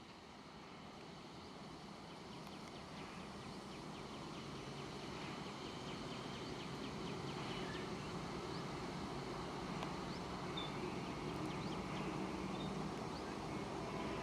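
An approaching train heard from a distance: a steady rumble that grows louder throughout, with birds chirping faintly.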